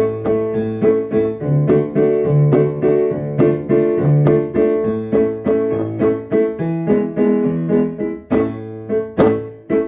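A keyboard playing an upbeat instrumental tune: a steady run of struck notes and chords over a bass line.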